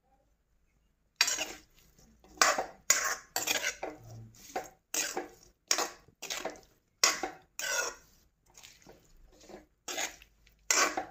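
A metal spoon stirs and scrapes against an aluminium kadai in repeated strokes, about one and a half a second, starting about a second in.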